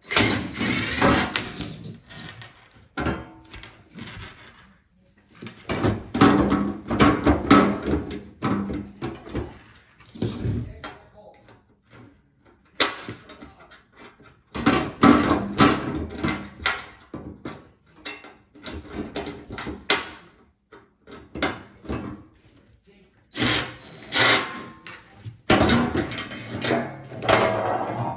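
Irregular bouts of knocking, clicking and rattling as plastic and metal parts of a front-loading washing machine are handled and pried apart, with quiet gaps between bouts.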